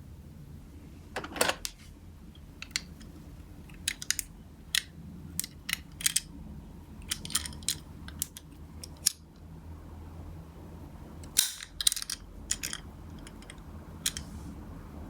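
Toy ambulance minicars being handled, giving many short, sharp clicks and clacks at irregular intervals, some in quick clusters.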